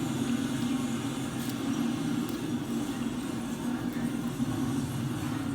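Steady low rumble of a road vehicle on the move: engine and road noise, even throughout.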